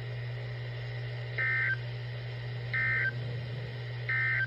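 Three short bursts of digital data tones, evenly spaced a little over a second apart: the EAS/SAME end-of-message code from a NOAA Weather Radio broadcast, marking the end of the alert. A steady low hum runs underneath.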